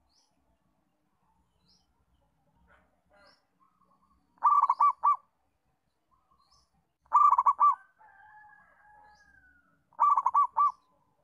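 Zebra dove (perkutut) cooing: three loud phrases of quick rippling coo notes, about three seconds apart. Faint high chirps from another bird come regularly, and a faint drawn-out whistle follows the second phrase.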